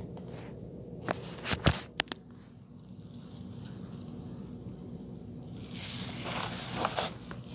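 Hands handling materials: several sharp clicks and knocks about a second in, then a couple of seconds of rustling near the end, over a steady low hum.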